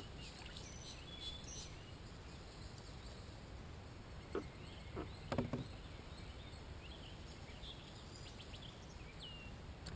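Quiet outdoor background: a low steady rumble with faint, scattered bird chirps, and a few light knocks about four to five and a half seconds in.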